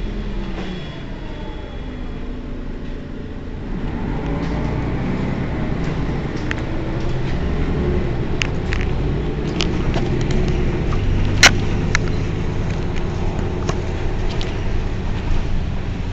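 Mercedes-Benz Citaro city bus's diesel engine idling while stopped, a steady low rumble that grows a little louder about four seconds in. A few sharp clicks come in the second half, the loudest about eleven seconds in.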